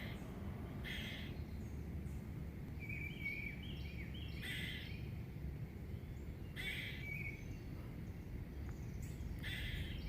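Squirrel calling from up in a tree: short, harsh calls repeated every two to three seconds, with quick chirps in between, over a steady low outdoor rumble.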